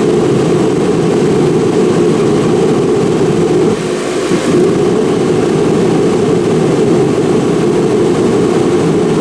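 Remington 60,000-BTU forced-air propane heater running: its fan and propane burner make a steady, loud rush. It is burning on its lowest heat setting, with the control held in while the thermocouple warms up.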